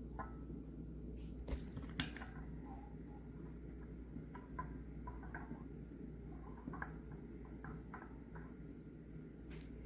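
Faint scattered clicks and taps of small engine parts being handled, over a steady low hum.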